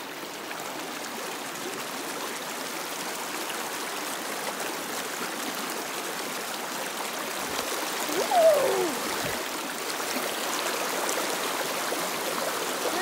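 Creek water rushing over rocks in small rapids, a steady rush. About eight seconds in, a short cry falling in pitch rises briefly above the water.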